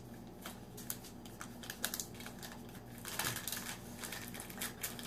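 Plastic wrapper of a 2015 Topps Heritage baseball card pack being torn open and crinkled by hand: a run of short, sharp crackles that grows denser and louder about three seconds in.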